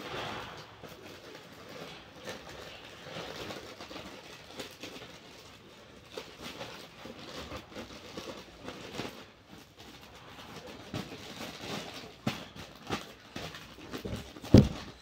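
Plastic courier mailer bags rustling and crinkling as they are handled, with scattered light clicks and ticks. A loud thump comes near the end.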